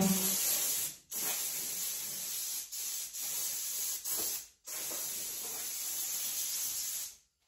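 Compressed-air blow gun hissing in long bursts with a few short breaks, blowing sanding dust off the aluminum jon boat hull.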